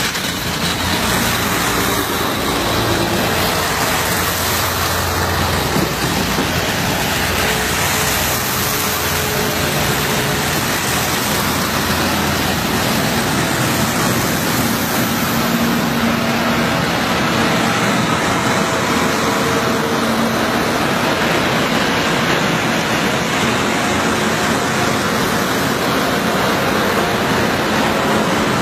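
A convoy of heavy snow plow trucks driving past one after another, their diesel engines running and front plow blades pushing and scraping snow along the road surface: a loud, steady noise with engine hums coming and going as each truck passes.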